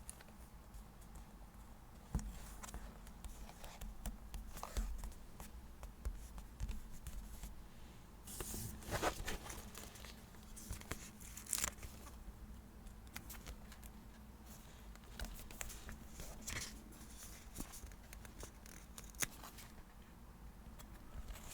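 Paper-craft handling at a desk: sticker sheets and paper being peeled, torn and rustled, with scattered light taps and clicks. The longest rustle comes a little before the middle, with shorter ones every few seconds.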